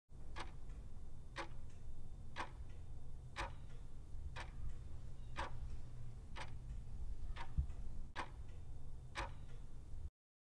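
Clock-ticking sound effect used as a quiz countdown timer: about ten sharp ticks, one a second, over a low rumble, cutting off suddenly near the end.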